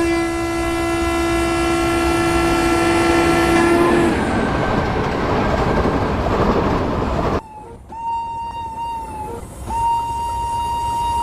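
Train horn sounding one long steady blast for about four seconds, followed by the loud rushing noise of the moving train. About seven seconds in, the sound cuts off abruptly to a quieter passage with a steady high-pitched tone.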